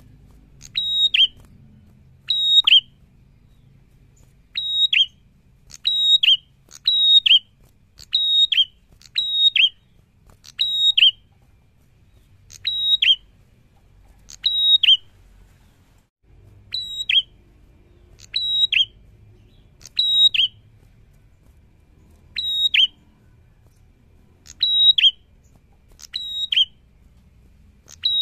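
Caged ashy tailorbird (prenjak) singing loud, sharp, high notes in quick pairs, each note dipping slightly in pitch, repeated every second or two with a few short pauses.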